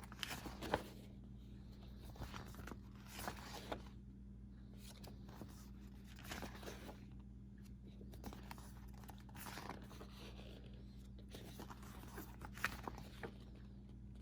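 Pages of a paper rule book being turned and handled: faint, short rustles every second or two.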